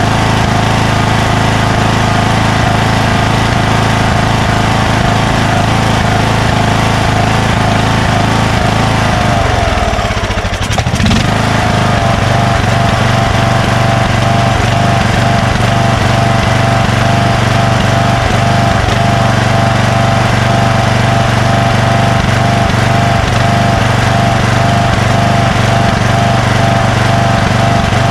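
Craftsman 20 hp lawn tractor engine running steadily with its shroud off. About ten seconds in, its speed dips briefly and picks back up, then runs on with a slight regular wobble.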